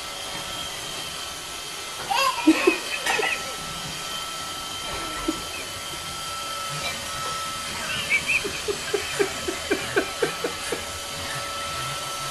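Robot vacuum cleaner running with a steady motor whir, while a small child riding it squeals about two seconds in and then laughs in a quick run of short bursts from about eight seconds in.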